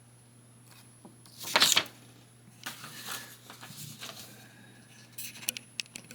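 Paper and cardboard packaging being handled: a loud rustle about a second and a half in, softer rustling after it, and a few sharp clicks near the end.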